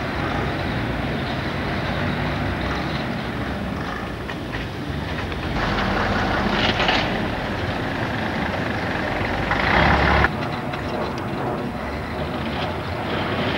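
Engines of old lorries and buses running, a steady low drone with two louder passages about six and ten seconds in; the second stops suddenly.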